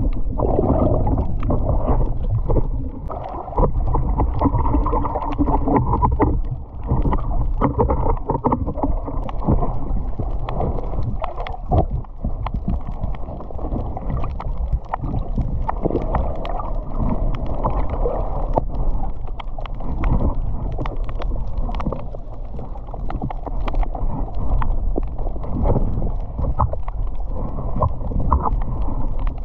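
Muffled sloshing and gurgling of seawater around a swimming spearfisher, with scattered short clicks and knocks.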